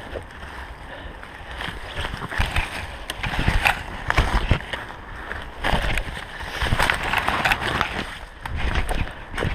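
Leaves and branches swishing and brushing against a runner's body and camera while he pushes through dense forest undergrowth. The rustling swells and fades irregularly, with scattered knocks and low thumps of footfalls on the forest floor.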